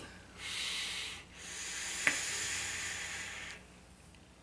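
A hit drawn through a Dead Rabbit rebuildable dripping atomizer on a mechanical mod: a short airy hiss, then a longer one of about two seconds as air is pulled through the airflow over the firing coil. A single faint click comes midway through the longer draw.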